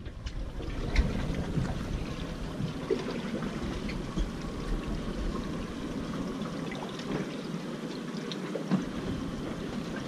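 Water sloshing and lapping against the hull of a small fishing boat, with a low rumble under it that drops away near the end and a few light knocks.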